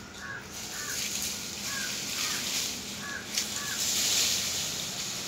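Green grass rustling as the twisted grass ropes are gathered up: a hiss that swells about a second in and is loudest near the end, with a sharp tick midway. Over it, a bird gives six short chirps in three pairs.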